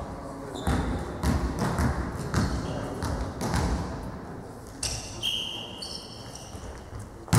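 A volleyball bouncing on a sports-hall floor, about one bounce every half second, with the echo of a large hall, and a few short high squeaks over it.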